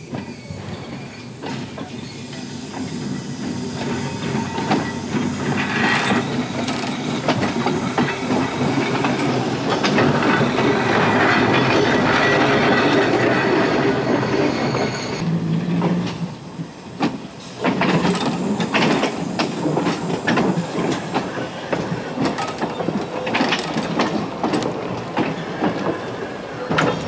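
Montreal & Southern Counties car 9, an electric interurban car, approaching and rolling past close by: a rumble of wheels on the track that builds to a loud peak, then a steady hum and a run of sharp clicks as its wheels cross the rail joints.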